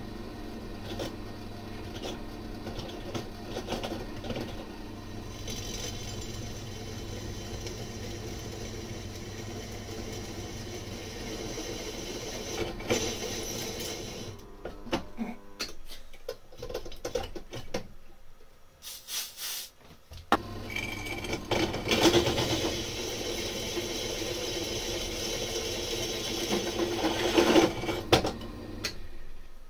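Clarke Metalworker bench drill press running and drilling through a steel plate, the motor humming steadily. About halfway through it winds down and a few knocks follow. It then starts again and drills on, louder than before.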